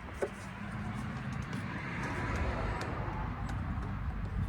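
A passing car's road noise, rising to a peak a little past the middle and then easing off, with a few light clicks of plastic parts being handled.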